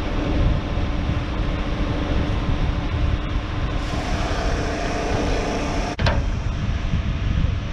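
Electric fuel transfer pump running steadily with a constant hum while diesel flows through the hand nozzle into a tank.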